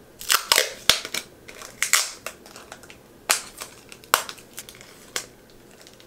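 Crinkling, crunching handling noise from something stiff and crackly being handled, in an irregular string of sharp crackles.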